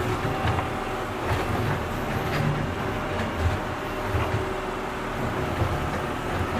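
Tractor running while digging: a steady engine sound with uneven low pulses and a few sharp clicks.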